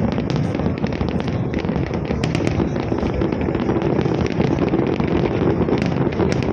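Fireworks display: a dense, continuous mix of bangs and crackling, with many sharp pops layered over a steady rumble.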